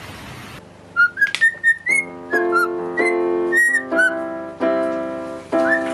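A cockatiel whistling short notes that glide up and down, along with chords played on an electronic keyboard. The first half-second holds a rushing water noise that cuts off suddenly.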